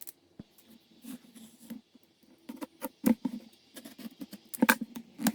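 Hands opening and handling product packaging: irregular scratches, crinkles and small taps, busier in the second half.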